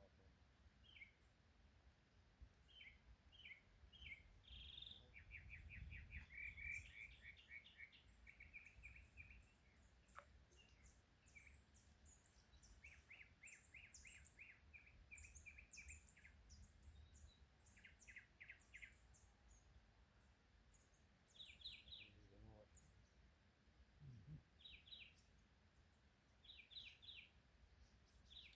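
Wild birds calling faintly: repeated short trills and quick high chirps from several birds, over a low rumble.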